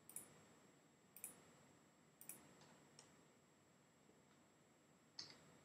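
Faint computer mouse clicks over near silence: five short clicks, about a second apart at first, with a longer gap before the last.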